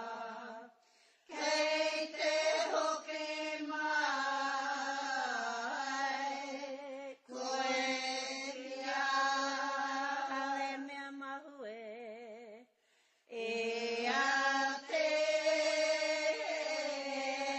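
Mōteatea, a traditional Māori chant, sung in long held notes on a narrow range of pitch. The singing breaks off for a breath about a second in and again about two-thirds of the way through, where the voice wavers in a quick trill just before the pause.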